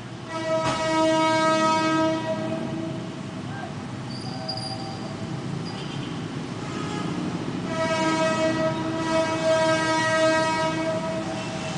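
Philippine National Railways train's horn sounding two long blasts, the first about three seconds long and the second about four seconds long after a pause, over a steady low rumble.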